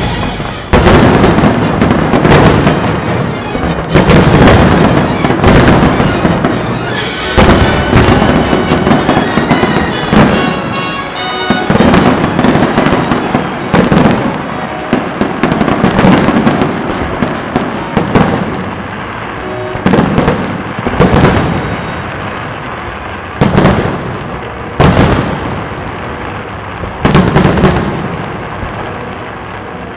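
Fireworks display: shells bursting one after another with loud booms, about one every one to two seconds, each boom trailing off before the next.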